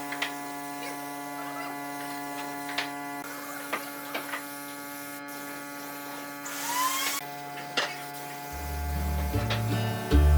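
Steady electrical hum with scattered light clicks and taps and a brief rising squeak about two-thirds of the way in. Guitar music comes in near the end.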